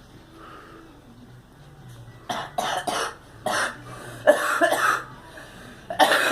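A girl coughing: after a quiet start, a run of short coughs begins about two seconds in, followed by a longer coughing fit and another starting near the end.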